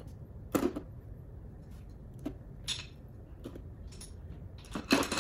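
A few short knocks and clatters as crabs and shellfish are put into the clear plastic upper tray of an electric food steamer, with a plate clinking against it; the loudest knocks come near the end.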